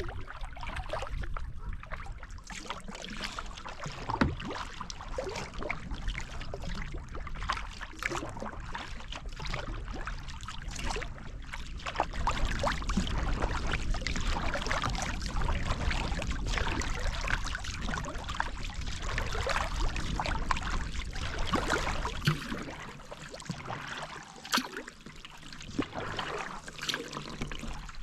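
Kayak paddling: paddle blades dipping and splashing with water trickling and dripping off them, in irregular strokes, over a low rumble that fades out near the end.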